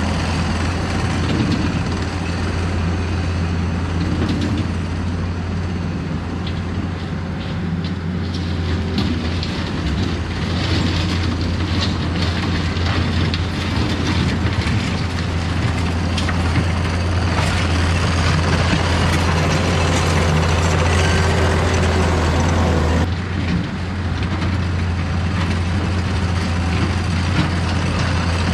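Takeuchi compact track loader's diesel engine running steadily at working throttle while it grades dirt with its bucket. The engine sound changes abruptly about three-quarters of the way through.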